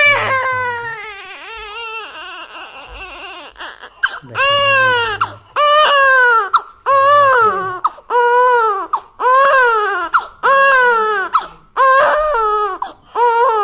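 Newborn baby crying: a long wavering wail at first that trails off, then a steady run of about eight loud cries, each about a second long, rising and falling in pitch, with short breaths between them.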